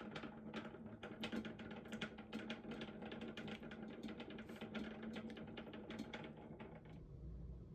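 Electric mixer running as it whips cream in a bowl: a steady motor hum under fast, irregular clicking and rattling of the beaters. It stops near the end.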